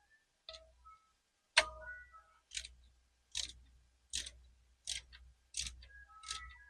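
Ratchet wrench clicking in regular strokes, about one every three-quarters of a second, each click with a short metallic ring, as the handlebar riser bolts are tightened.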